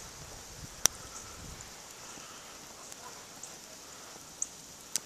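Quiet outdoor ambience on a snowy street: a steady soft hiss, with a sharp click a little under a second in and two more near the end.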